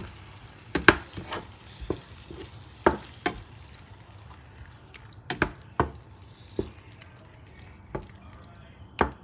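Wooden spatula stirring a thick cream sauce in a non-stick frying pan, knocking and scraping against the pan at irregular moments, about one or two knocks a second.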